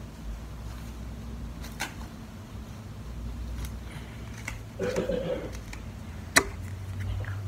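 Plastic bottles and containers being picked up and handled on a tabletop: scattered clicks and taps, with one sharp click about six seconds in, over a steady low hum.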